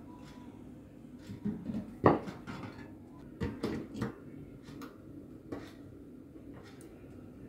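Butane gas canister being fitted into a Dr Hows Twinkle mini portable gas stove: metal clunks and clicks as the can is set into its compartment, pressed onto the valve and twisted into place. The loudest is a sharp knock about two seconds in, followed by a few quicker clicks a little later.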